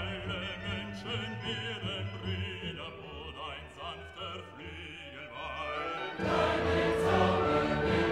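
Background music with wavering operatic or choral singing over sustained accompaniment, becoming louder and fuller about six seconds in.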